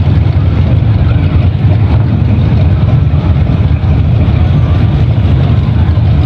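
Late-1950s Chevrolet pickup's engine running at low speed with a loud, deep exhaust rumble as it creeps past.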